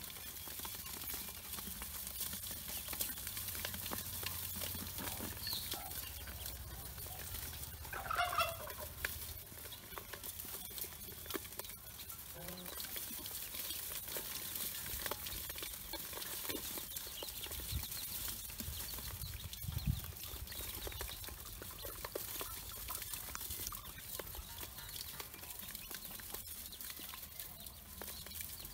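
Pekin ducklings peeping and pecking at feed in a steel bowl, a steady crackle of small ticks. One louder call comes about eight seconds in, and a low knock near twenty seconds.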